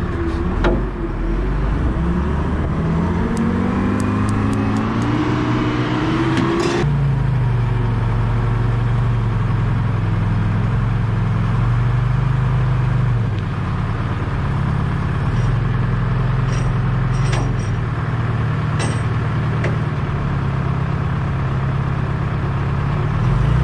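Trojan wheel loader's engine revving up over the first several seconds, then running steadily under load as the loader works, with a brief dip in revs partway through and a few faint metallic ticks near the end.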